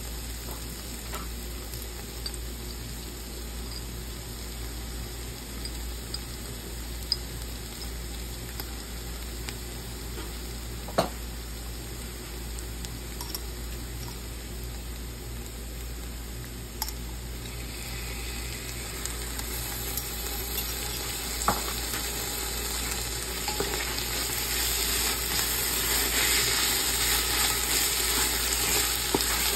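Sliced red onions frying in oil in a stainless steel pot, sizzling steadily while a wooden spatula scrapes and stirs them. There are a few sharp knocks, and the sizzle grows louder over the second half.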